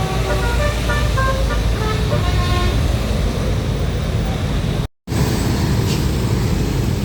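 Tour bus's Basuri telolet air horn playing a quick tune of short stepping notes over the rumble of the bus engine and traffic. The sound drops out completely for an instant about five seconds in, then the engine and traffic noise go on.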